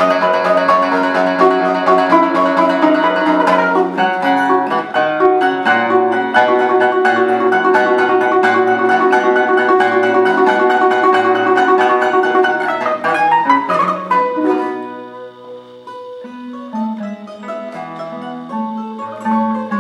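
Balalaika and guitar duo playing a Baroque harpsichord piece in a fast, busy plucked passage. About fourteen seconds in, the playing turns much quieter and sparser.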